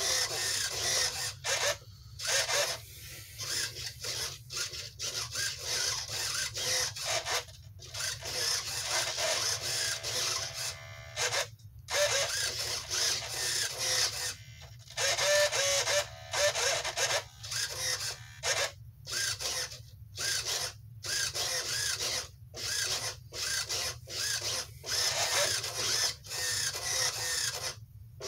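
Standard RC servos (an Airtronics 94102 and a Tower Hobbies TS-53, with a Futaba S3010 high-torque servo) whirring through repeated moves, short runs of motor-and-gear whine broken by brief stops. They run on a 1S 3.7 V LiPo and the moves show no sign of weakening.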